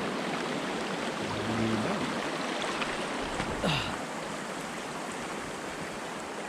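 Steady rush of flowing water, a stream or falls, easing a little after the middle, with a brief faint sound about three and a half seconds in.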